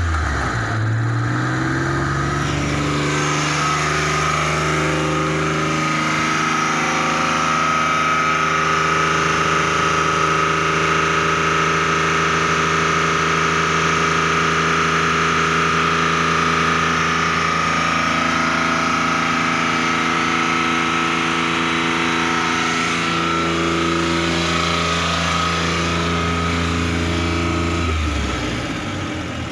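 Worn, smoky vehicle engine revved up about a second in and held at raised revs, with a steady high whine over it, then dropping back to idle near the end.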